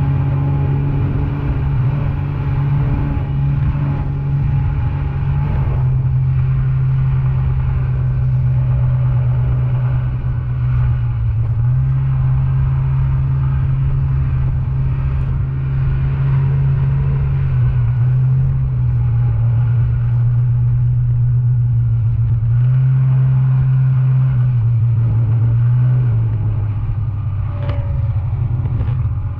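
Snowmobile engine running under way, its pitch stepping up and down every few seconds as the throttle changes, over a steady low rumble.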